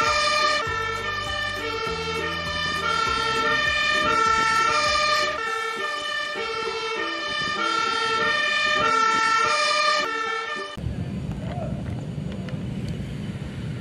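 Fire engine's two-tone siren alternating high and low, each tone held about half a second, over the truck's engine. The siren cuts off abruptly after about eleven seconds, leaving a steady low rumble.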